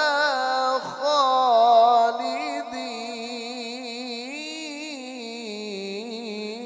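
A male qari reciting the Quran in melodic tajweed style, drawing out long ornamented notes whose pitch wavers up and down. It is loudest in the first two seconds, then goes on softer.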